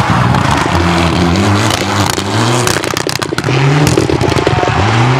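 Mitsubishi Lancer Evolution rally car's turbocharged four-cylinder engine revving hard as it accelerates away, its pitch climbing and dropping back four times as it shifts up through the gears. A quick run of crackling pops comes about three seconds in.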